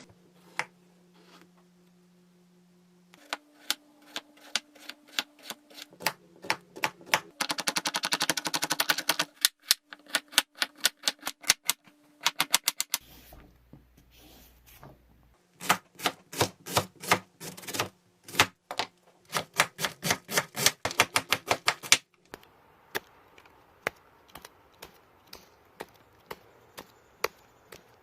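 A kitchen knife chopping rapidly on a cutting board: quick runs of sharp taps, several a second, in bursts with short pauses between them.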